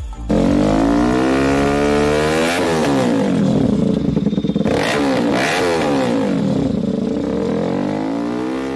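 Motorcycle fitted with an aftermarket M4 slip-on silencer, revved repeatedly. The exhaust note rises and falls several times.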